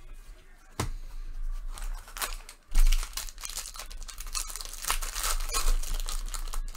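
Foil wrapper of a baseball card pack being torn open and crinkled, with scattered sharp crackles. The crackling grows denser from a loud snap about three seconds in.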